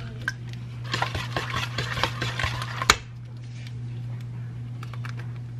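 Eggs being cracked on the rim of a stainless steel pot and emptied in: a busy run of clicks and scraping for about two seconds, ending in one sharp knock about three seconds in, over a steady low hum.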